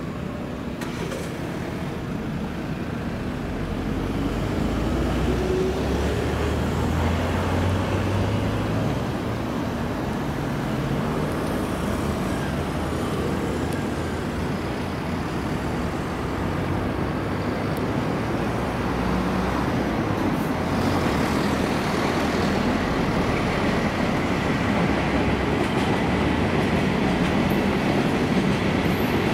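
DE11 diesel-hydraulic locomotive hauling a train of hopper wagons: its engine running under load grows louder from about four seconds in, with a rising whine over it. It gives way to the steady rumble of the wagons rolling past, with a faint high steady tone over it in the last few seconds.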